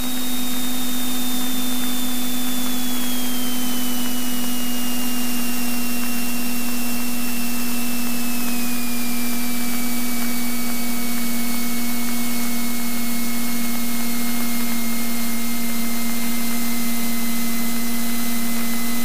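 Cessna 172N Skyhawk heard through the intercom in flight: a steady hiss with a low steady hum. A high whine tracks engine speed and slides down in a few steps to about half its pitch as the engine is throttled back for a stall.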